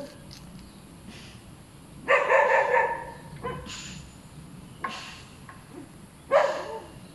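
A dog barking: a quick run of barks about two seconds in, then scattered single barks, with another loud bark about six seconds in.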